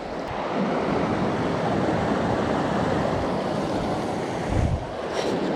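Steady rush of water from a small mountain stream. There is a brief low thump about four and a half seconds in.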